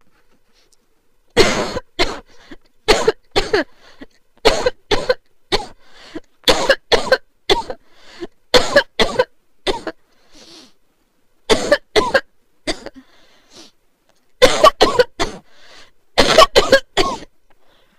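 A person coughing hard in repeated fits, two or three sharp coughs at a time, starting about a second and a half in and going on with only short pauses; the cough of someone sick with the flu.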